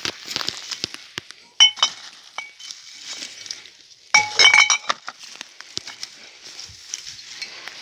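Old glass bottles clinking against one another in a wicker basket: a short clink about one and a half seconds in, and a longer run of ringing clinks around four seconds in. Rustling and crackling of twigs and undergrowth in between.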